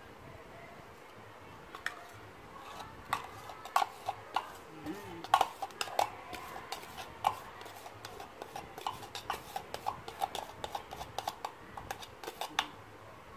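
Metal kitchen utensil clinking and scraping against a container as cream and condensed milk are worked together, in irregular sharp clicks that come several a second from about two seconds in.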